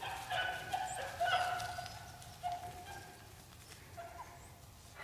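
Faint, distant beagles baying on a rabbit's trail: several drawn-out voices overlap, then thin out after about three seconds, with one short cry near the end.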